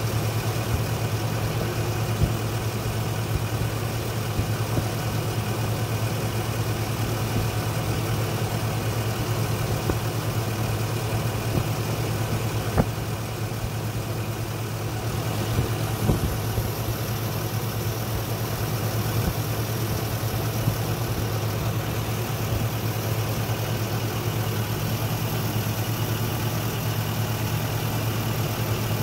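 Isuzu truck's engine idling steadily, heard from beneath the vehicle, with a few faint clicks partway through.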